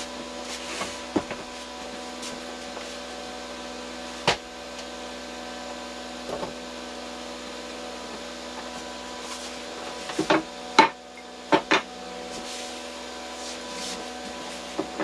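Wooden 2x4 boards knocking and clunking against a wooden shelf frame as they are handled and laid across it: a single sharp knock about four seconds in and a cluster of knocks around ten to twelve seconds in, over a steady background hum.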